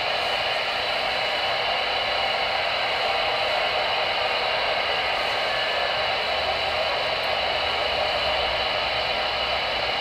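Steady static hiss from a Voyage CB transceiver's speaker on channel 22 AM, with no voices coming through.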